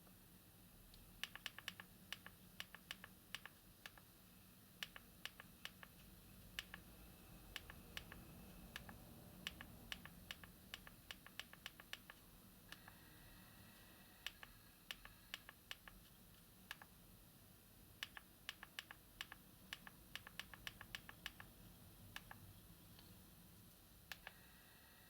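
Keypad buttons of a Nokia 6300 4G being pressed: sharp plastic clicks in quick runs with short pauses.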